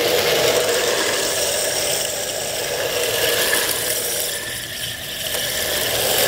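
RC drift car running on rough asphalt, its hard plastic wheels rattling and rubbing over the surface under the drive motor's whine. The noise dips around four to five seconds in as the car moves farther off.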